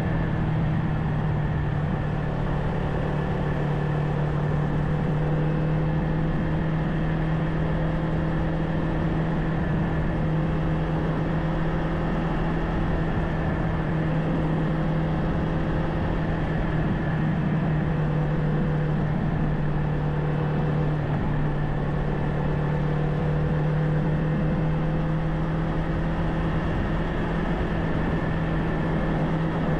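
Kawasaki Ninja 500's parallel-twin engine running steadily at a constant speed, its pitch holding level, under a steady rushing noise.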